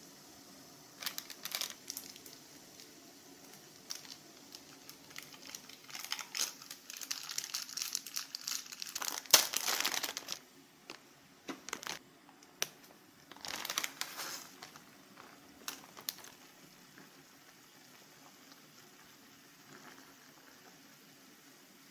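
Plastic wrapper of an instant ramyun packet crinkling in irregular bursts as it is handled and torn open, loudest about halfway through, then going quiet for the last few seconds.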